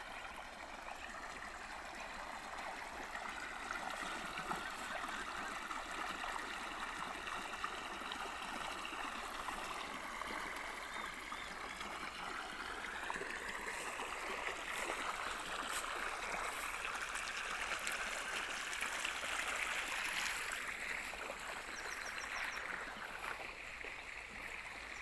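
Pumped irrigation water gushing out of a pipe outlet and rushing along an earthen field channel, a steady splashing flow.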